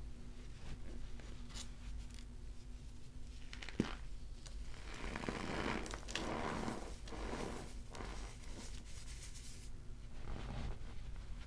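Cornstarch blocks topped with baking soda being pressed and broken apart by hand, the packed starch crunching and squeaking. There is a sharp click a little before four seconds in, the densest crunching comes in the middle, and there is a shorter spell near the end.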